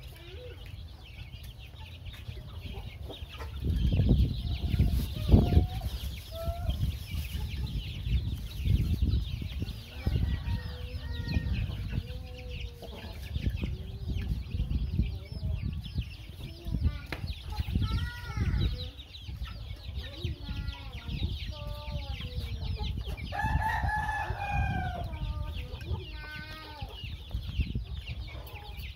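A flock of chicks peeping continuously while they feed, with clucking calls from older chickens mixed in and one louder drawn-out call about 24 seconds in. Low thumps stand out between about four and six seconds in.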